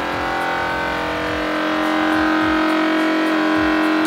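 Vacuum sealer's pump running steadily as it draws air out of a bag of dry macaroni, partway through a vacuum-and-seal cycle.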